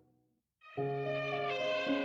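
A brief gap of near silence, then background music with held, layered tones comes in under a second in.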